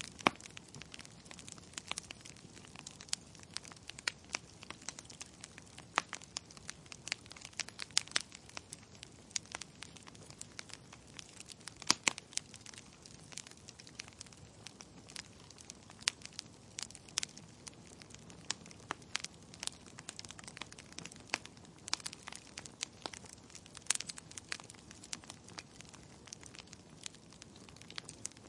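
Wood fire burning in a fireplace, the logs crackling and popping in irregular sharp snaps, some much louder than others, over a soft steady hiss.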